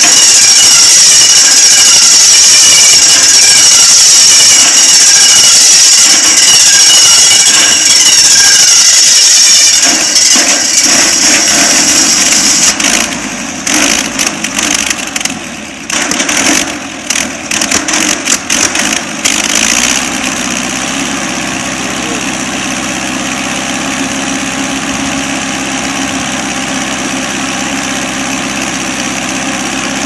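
Sawmill engine running loud and fast. About ten seconds in it is throttled back and runs unevenly for several seconds. It then settles into a steady idle from about twenty seconds in.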